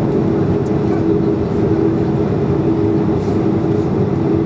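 Inside the cabin of a Boeing 737, the jet engines run steadily: an even hum with a steady tone, neither rising nor falling, while the aircraft stands nearly still before the take-off roll.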